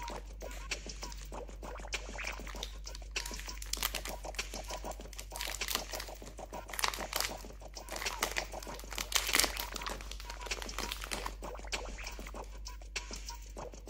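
Bounty bar wrapper crinkling and crackling as it is handled and torn open. The crackling is densest and loudest a little past the middle, then thins out near the end.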